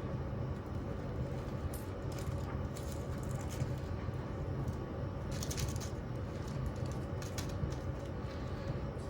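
Washing machine running with a steady motor hum, while something loose inside rattles and clinks in irregular bursts, loudest about halfway through.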